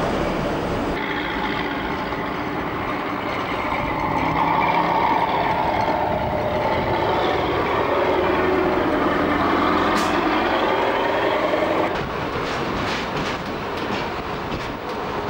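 Rail motor running on the branch line, a steady engine and wheel noise whose pitch dips and rises through the middle. Near the end come repeated clicks of the wheels over rail joints.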